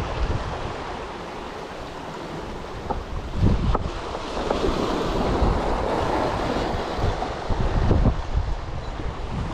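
Small sea waves washing in over a beach of rounded cobbles, with wind buffeting the microphone in gusts.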